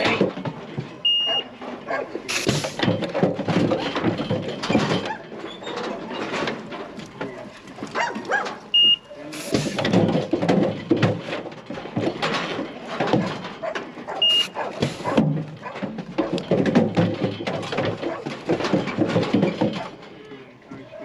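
Lambs being run through a weighing crate: a steady din of rattling, knocking and animal calls, with a short high electronic beep from the scale three times as each weight is taken.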